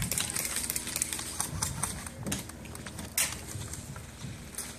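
Airsoft guns firing across the field: scattered sharp cracks and ticks at an irregular pace, one louder shot about three seconds in.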